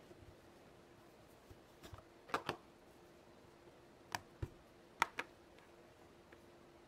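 Light clicks and taps of plastic Play-Doh tools handled on a tabletop while Play-Doh is rolled out, coming in three quick pairs, over a faint steady hum.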